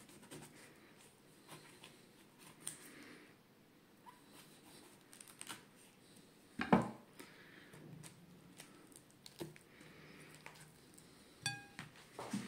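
Kitchen knife cutting into a pineapple, faint slicing and scraping of the blade through the flesh and skin, with scattered light clicks. One louder knock comes about seven seconds in.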